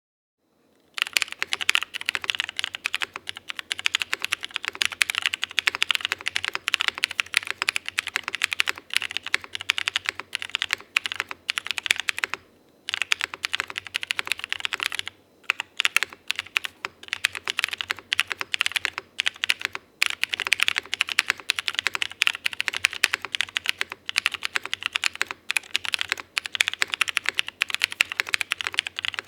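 Continuous fast typing on a custom mechanical keyboard with filmed Cherry MX Falcon tactile switches on a polycarbonate plate and GMK keycaps: a dense stream of keystroke clacks that starts about a second in, with a couple of brief pauses in the middle.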